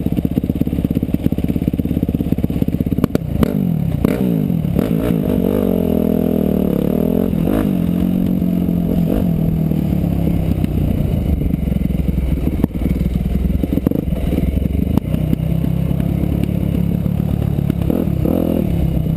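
Motorcycle engine running while riding: it drops off about three seconds in, then revs back up and rises and falls in pitch as the speed changes. Scattered knocks and clatter come through the whole time.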